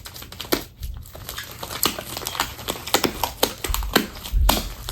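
Homemade slime being mixed and squished by hand: a run of irregular sticky clicks and pops, with low bumps near the end.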